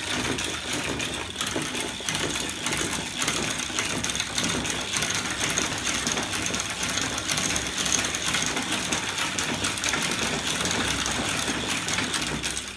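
Homemade crank-and-linkage mechanism on a bicycle, driven by an electric motor, running steadily. Its chain, sprockets and aluminium arms make a fast, even mechanical rattle.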